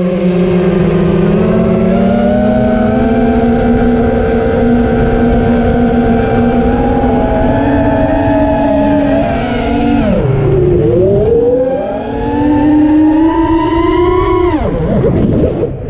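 FPV quadcopter's motors and propellers whining, heard close up from the onboard camera. The pitch holds steady, dips sharply about ten seconds in and climbs back, then drops again near the end and rises: the throttle being chopped and punched during freestyle moves.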